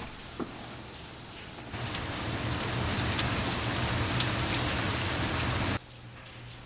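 Rain falling, with single drops ticking through a steady patter. It grows much louder about two seconds in, then cuts back abruptly to a softer patter near the end.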